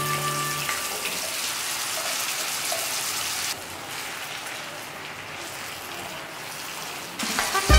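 Chili sambal with boiled eggs and potatoes sizzling in a frying pan as basil leaves are stirred in with a spatula. The sizzle drops quieter about halfway through.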